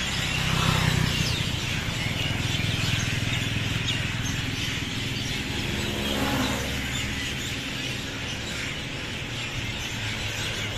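A chorus of many small birds chirping and calling over each other, over a steady low rumble of traffic.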